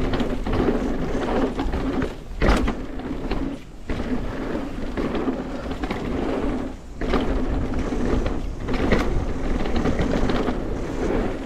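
Bicycle being ridden: a steady rumble of rolling and drivetrain noise, with one sharp click about two and a half seconds in and fainter clicks later.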